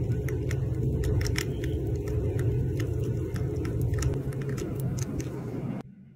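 Molten metal pouring from a ladle into a sand mould: a steady low rumbling with scattered faint crackles, cutting off suddenly near the end.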